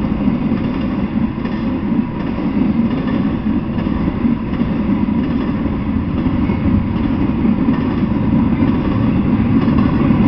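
Intermodal freight train passing, a steady rumble of wheels on rail that grows a little louder near the end.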